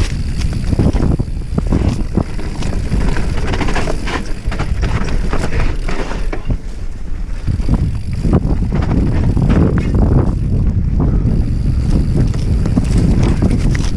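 Wind buffeting the microphone over a continuous rumble, with irregular clattering knocks from a mountain bike rolling fast over rough, rocky trail on a downhill enduro descent.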